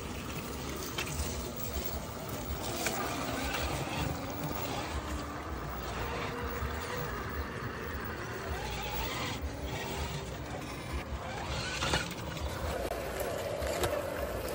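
Electric motors and geared drivetrains of 1/10-scale RC crawlers whining as they drive through a shallow creek, the pitch rising and falling with the throttle, with water sloshing and occasional clicks of tyres and chassis on rock.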